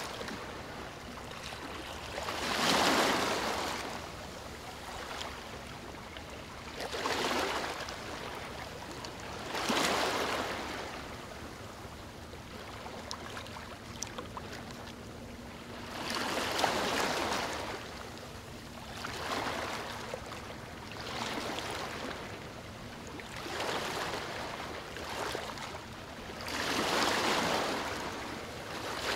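Water sloshing and splashing as a brown bear wades and swims, coming in swells of about a second every few seconds.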